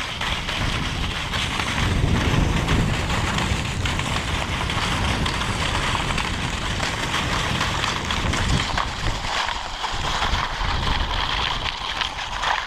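Steady wind noise buffeting the camera microphone, mixed with the hiss of the dog sled's runners sliding over snow.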